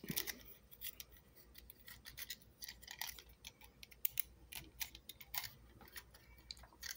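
Faint, irregular clicks and taps of a 3D-printed plastic keychain case and its hinged chopsticks being handled and pressed together in the hands.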